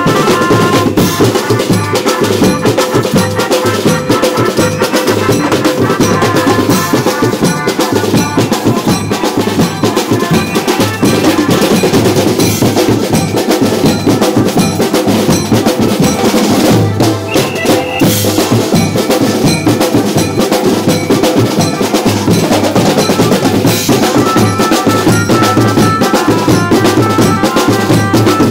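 A Maharashtrian banjo party band playing a fast, dense drum rhythm under a melody on the electric Indian banjo. The melody stands out clearly in the first few seconds and again near the end.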